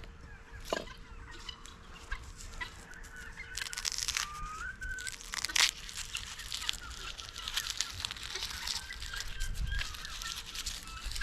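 Guinea fowl chirping and clucking over and over, with scattered dry clicks and rustling close by.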